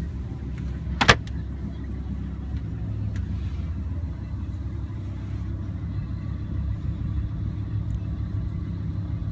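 Steady low rumble inside a Lamborghini Huracán's cabin, with one sharp click about a second in as the glove box lid shuts.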